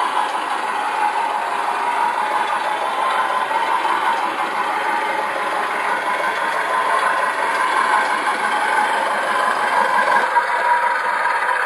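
MrRCsound module in a Tamiya Scania RC truck playing a diesel truck engine sound through the model's small speaker as it drives; the sound is steady and thin, with no deep bass.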